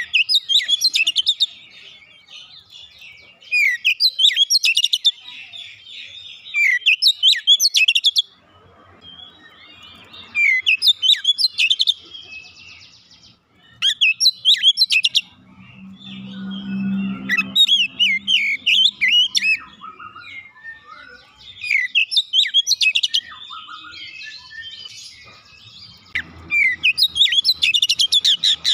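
Oriental magpie-robin (kacer) singing loud phrases of rapid, varied whistles and chirps, each a second or two long, with short pauses between them.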